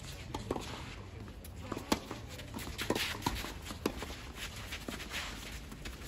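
Doubles tennis rally: a series of sharp pops as the ball comes off the rackets and bounces on the court, the loudest about two seconds in, with the players' footsteps shuffling and scuffing on the court between shots.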